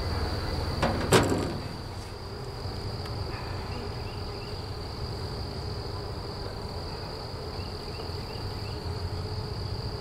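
Steady, high-pitched chirring of crickets or other insects over a low rumble. About a second in come a couple of sharp clicks as the beekeeper handles a metal queen excluder strip at the hive entrance.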